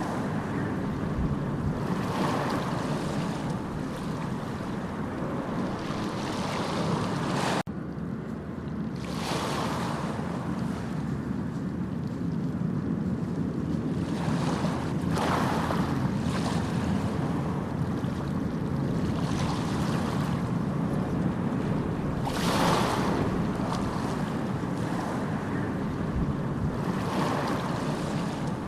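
Ocean surf: a steady low wash of waves with a swell of brighter hiss every few seconds as waves break. A sudden brief drop in the sound comes about a quarter of the way in.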